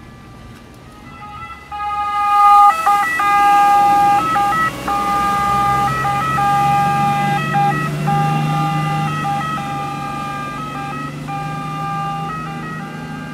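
Siren of a Venetian water ambulance boat sounding loudly from about two seconds in, its steady tones breaking off and resuming, over the low drone of the boat's engine.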